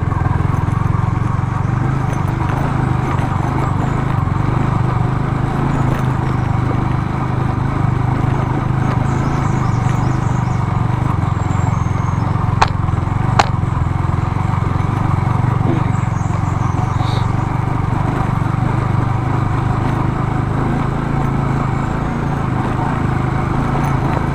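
Yamaha R15 V3's 155 cc single-cylinder engine running steadily while the bike is ridden over rough ground. Two sharp clicks about halfway through.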